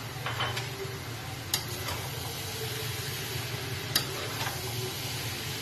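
Spoon stirring zarda rice cooking in ghee and sugar in a pot over low heat, with a steady low hum beneath. Two sharp clinks stand out, about a second and a half in and again at about four seconds.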